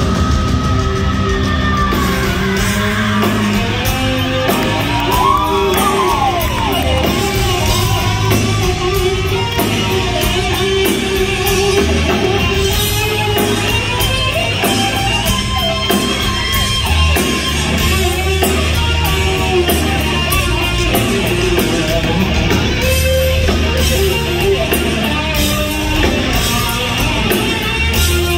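Live hard rock band playing loud, heard from among the audience, with an electric guitar lead played on a double-neck guitar through Marshall amplifiers over bass and drums.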